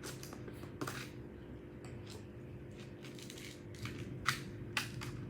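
Takeaway yogurt packaging being unboxed by hand: irregular rustles, crinkles and light clicks as the bag and container are handled.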